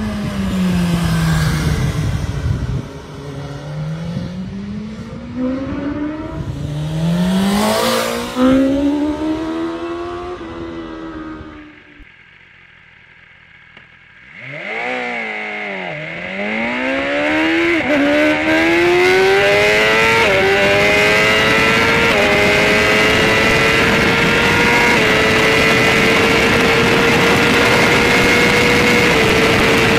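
BMW S1000RR's 999 cc four-cylinder engine revving hard as the bike rides up and past, its pitch sweeping up and down. After a short quieter break, the same engine is heard from onboard under full-throttle acceleration to nearly 300 km/h. Its pitch climbs and drops at each upshift, then rises only slowly in top gear under heavy wind rush.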